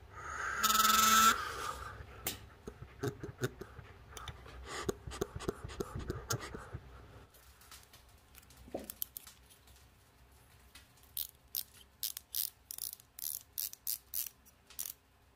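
A two-stroke scooter's reed valve blown through by mouth: the reed petals buzz briefly, loud and pitched, about half a second in. Light clicks and taps of small metal parts being handled follow, then a run of sharp clicks near the end.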